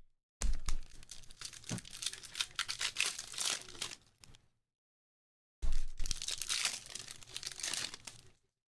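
Panini Prizm trading-card packs and cards being handled during a pack opening: crinkling foil wrappers and cards sliding against each other. The crackly rustling comes in two stretches, about four and three seconds long, with a short silent gap between them.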